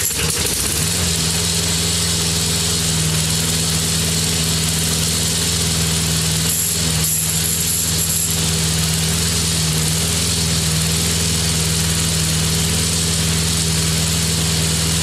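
Briggs & Stratton four-stroke lawn mower engine catching right at the start and then running steadily, its carburetor just reseated after a bent bracket was straightened.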